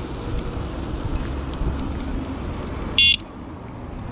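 One short electronic bicycle horn beep about three seconds in, a single high tone lasting a fraction of a second, sounded to warn pedestrians ahead, over a steady rumble of wind and tyres from the moving e-bike.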